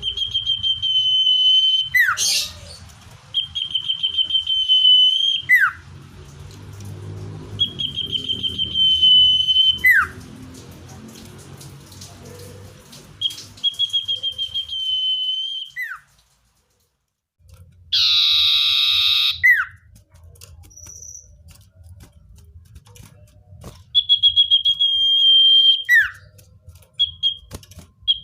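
Common iora (cipoh) song: a trilled whistle held at one pitch for about two seconds, ending in a quick downward note, repeated every few seconds. About two-thirds of the way through there is a brief dropout, followed by one louder, harsh, rasping note about a second and a half long.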